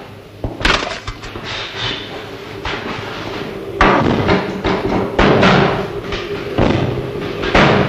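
Electric typewriter being typed on: scattered key clicks at first, then from about four seconds in a dense run of clattering strikes over a steady hum.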